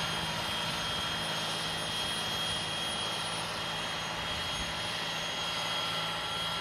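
John Deere 8R tractor's 9-litre diesel working under steady load, pulling a Väderstad disc cultivator through dry soil. It makes a constant engine drone with a steady high whine over the rush of the implement, with no change in pitch.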